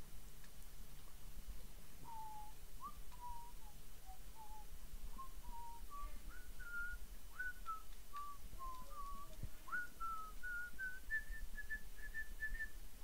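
A man whistling a tune to himself, a string of single clear notes that wander up and down and climb higher toward the end, starting about two seconds in.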